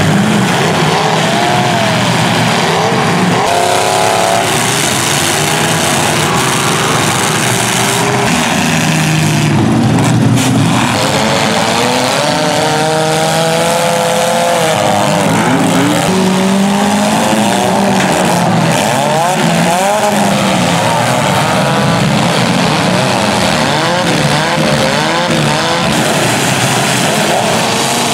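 Several demolition derby cars' engines revving at once, their pitches rising and falling over one another, with the occasional knock of cars colliding.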